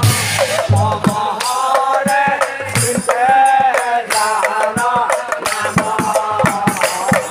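Assamese nagara naam: a group of men singing a devotional chant, accompanied by struck nagara drum strokes with low thuds and clashing large hand cymbals.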